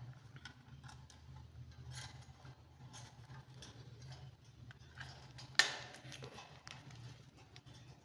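Light scattered clicks and taps of a rose-ringed parakeet clambering about a wire cage, its beak and feet on the bars, with one sharp louder knock about five and a half seconds in. A steady low hum runs underneath.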